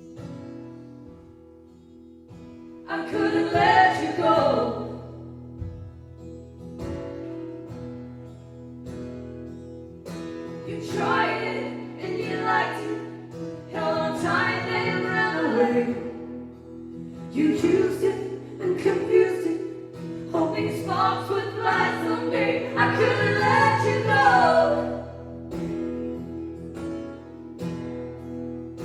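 Live acoustic folk song: sung vocal phrases over sustained acoustic guitar chords, the voice coming in three stretches with instrument-only gaps between.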